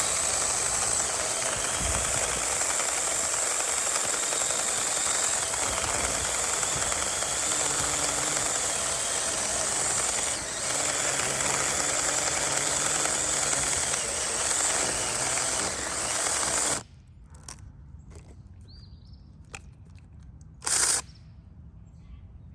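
Battery-powered DINSHARE 4-inch mini chainsaw running steadily as it cuts through a branch about 4.5 inches thick. It stops suddenly about 17 seconds in, followed by a few faint knocks and one short burst of the saw running again near the end.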